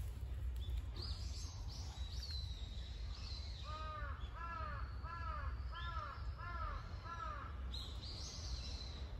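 A crow cawing, a run of about seven caws in a row starting a few seconds in. Small birds chirp with short high falling notes before and after, over a steady low rumble.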